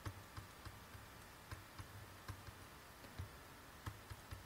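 Faint, irregular clicks and taps of a stylus on a pen tablet, a dozen or so in a few seconds, as Japanese characters are handwritten, over a faint low hum.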